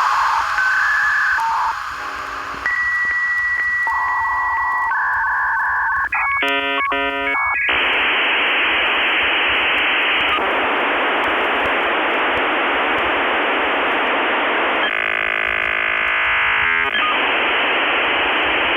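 Dial-up modem handshake heard over a narrow telephone line. A few steady tones, including a high tone with small regular breaks, give way about six seconds in to a chord of many tones. From about eight seconds on there is a steady hissing static, changing briefly near the end.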